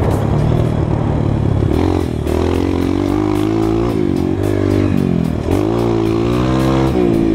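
Honda CRF230 dirt bike's single-cylinder four-stroke engine running under load while being ridden, its pitch rising and falling with the throttle and gear changes. There are short dips about two seconds in and again about five and a half seconds in.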